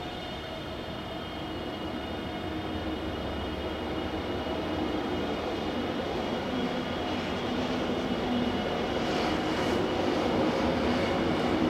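Taipei Metro Bannan line train approaching slowly, its running noise growing steadily louder, with a steady high whine over it.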